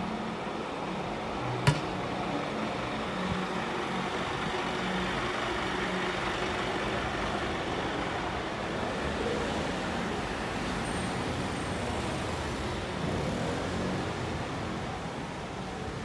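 City bus engine running close by, over steady street traffic noise. A single sharp click about two seconds in.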